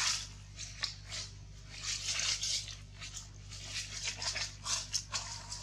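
Dry fallen leaves rustling and crunching in a series of irregular bursts, as they are disturbed on the forest floor.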